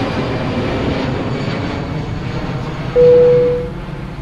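Steady airplane engine noise, easing slightly, with a single clear ding about three seconds in that is the loudest sound and rings out in under a second.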